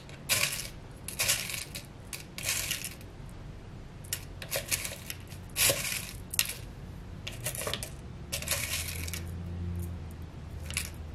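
Hands handling a small piece of leather: about ten short, irregular scraping and rustling sounds.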